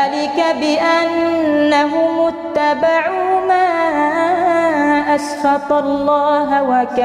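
A male imam's solo voice chanting Quran recitation in melodic tajwid style, drawing out long notes with small ornamental turns and steps in pitch.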